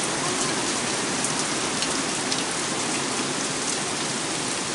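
Heavy downpour of rain falling steadily, a dense even hiss with scattered sharper drop hits.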